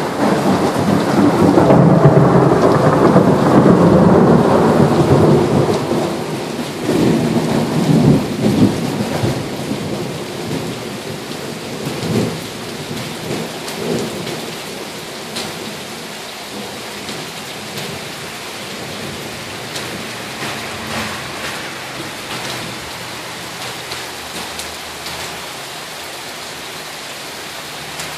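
A long roll of thunder, loudest in the first six seconds, rumbling away over the next few with a couple of weaker rumbles after it. Rain falls steadily throughout, and is all that is left in the second half.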